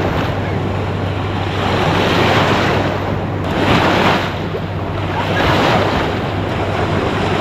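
Water washing and splashing in surges about every second and a half, with wind buffeting the microphone and a steady low hum underneath.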